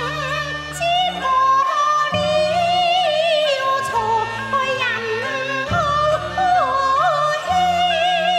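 Cantonese opera music: a wavering melody line over sustained low notes.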